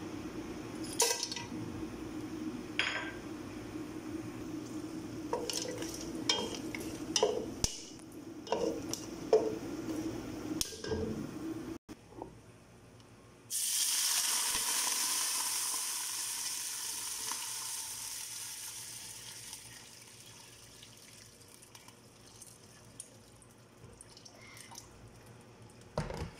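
A few clicks and knocks as whole spices (cinnamon bark, cardamom pods, bay leaves, dried lemons) are tipped into hot oil in a non-stick pot. About halfway through, water poured in from an electric kettle hits the hot oil with a sudden loud hiss that fades over several seconds.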